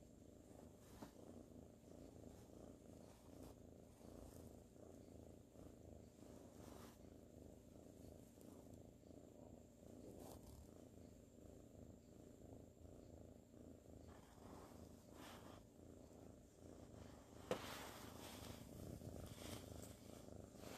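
Soft, steady purring of a ginger tabby kitten, with a single sharp click near the end.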